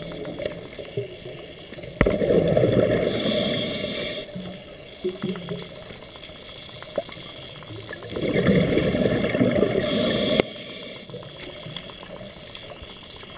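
Scuba diver breathing through a regulator underwater: two long rushes of exhaled bubbles, one about two seconds in and one about eight seconds in, with a fainter crackle and hiss between them.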